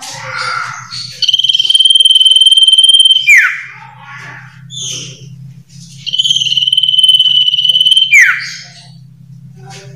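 Iora (sirtu/cipoh) singing: two long, steady high whistles, each ending in a quick falling note, about five seconds apart, with softer short chirps in between. A faint low steady hum runs underneath.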